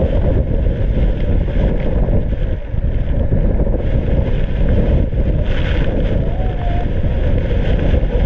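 Waterfall crashing into the sea, a steady loud roar of falling water, with wind and spray buffeting the microphone.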